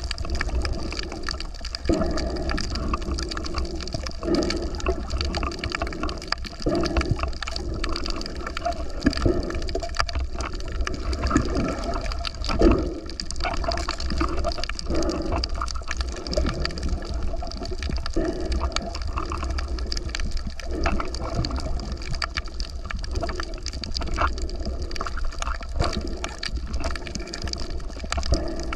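Water sloshing and gurgling over a steady low rumble, with irregular surges every second or two.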